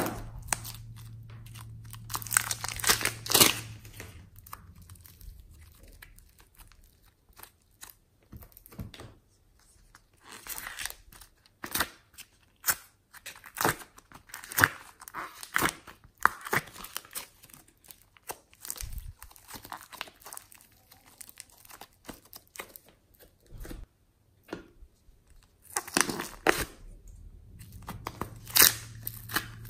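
Hands squeezing a clay-filled plastic piping bag and pulling apart soft foam clay: irregular crinkling and crackling with short tearing sounds. The crackles come in clusters, a few seconds in, through the middle, and again near the end.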